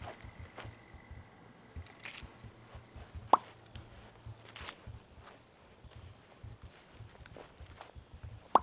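Two sharp plops, like drops falling into water, about five seconds apart, over faint scattered ticks and a thin steady high tone.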